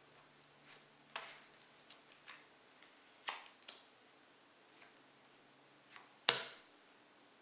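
Playing cards being handled over a granite tabletop: several soft clicks and rustles as cards are pulled from a fanned hand, then one sharp slap near the end as cards are laid face down on the table, the discard to the crib.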